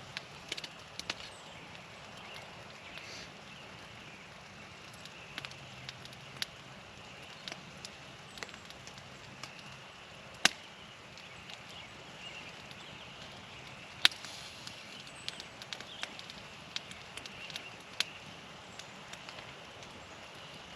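Campfire crackling, with scattered sharp pops of burning wood over a steady hiss; three pops, about 10, 14 and 18 seconds in, stand out as loudest.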